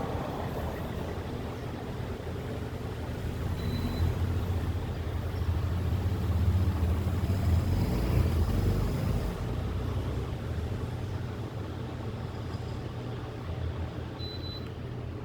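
Ventisol Sunny ceiling fan running: a steady low hum with a rush of moving air, swelling in the middle and easing after about nine seconds.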